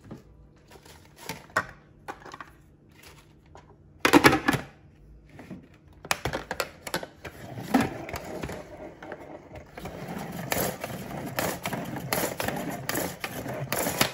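Lettuce leaves dropped into a plastic salad spinner basket with light knocks, and a loud plastic clatter about four seconds in as the lid goes on. Then the pull-cord salad spinner is worked: the basket whirs round with the leaves inside, with a pull of the cord about every second near the end.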